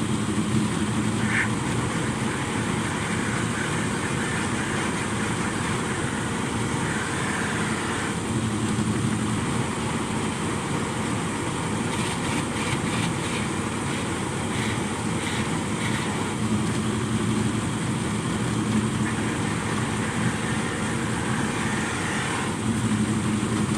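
Polishing machine running steadily with a spinning buffing mop, a sanded wooden door capping being buffed against the mop with compound.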